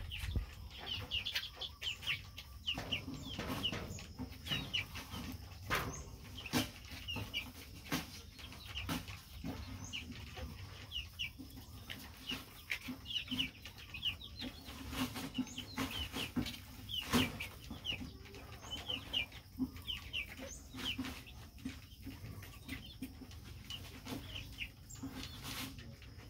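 Young chicken peeping in many short, falling cheeps, with lower clucking notes underneath and occasional sharp clicks.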